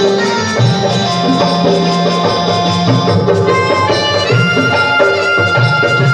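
Instrumental devotional tune in Indian folk style: a melody of long, held notes that step up and down over a steady percussion beat.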